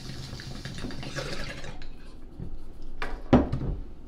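Water in a bong bubbling as a hit is drawn through it, stopping a little under two seconds in. About three seconds in comes a sharp knock as the bong is set down on the table, with a smaller knock just after.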